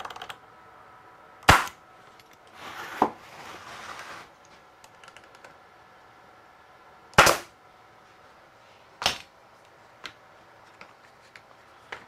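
Pneumatic air stapler driving staples into a pine frame corner: four sharp shots at uneven intervals, with a short hiss between the first two.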